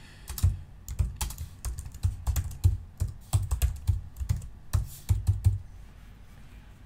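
Typing on a computer keyboard: an irregular run of key clicks that stops about a second before the end.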